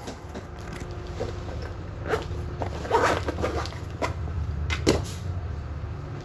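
Rustling and a few sharp clicks as a bag is handled and packed, over a steady low hum.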